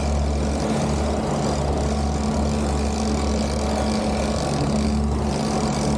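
Boat's outboard engine running steadily, a constant low drone with an even hiss over it.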